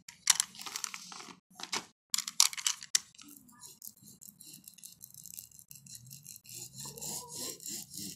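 Screen spline roller pressing the spline and pet screen mesh into a screen frame's channel: a run of scratchy clicks and rasps, busiest in the first three seconds, then quieter rubbing and handling.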